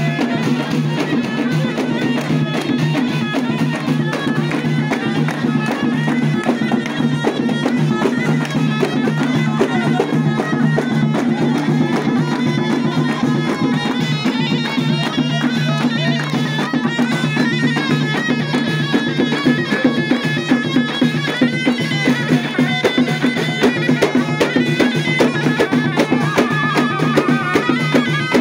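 Loud folk music: a reedy wind instrument plays a wavering melody over a steady low drone, while drums beat a rhythm.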